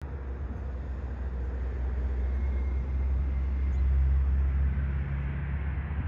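A motor vehicle's engine running, a low hum that swells to its loudest about four seconds in and then eases off.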